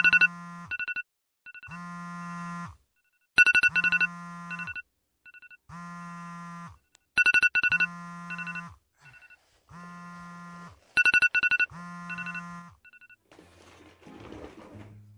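Smartphone alarm ringing: a short electronic melody of quick high notes and a held tone, repeating about every four seconds. It stops about 13 seconds in.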